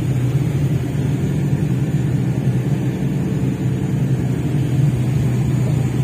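Fishing boat's inboard engine running with a steady low drone, heard from inside the crew's sleeping berth.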